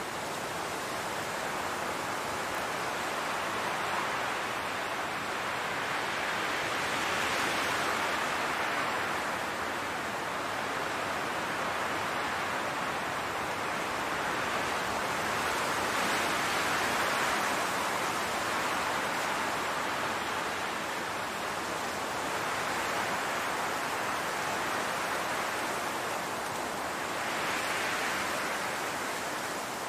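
Wind blowing through a field of tall grass: a steady, even rush that swells and eases in slow gusts every several seconds.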